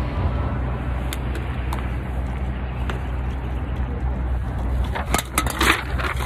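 Steady low rumble of city street traffic, with a few sharp clicks and a brief cluster of clatters about five seconds in.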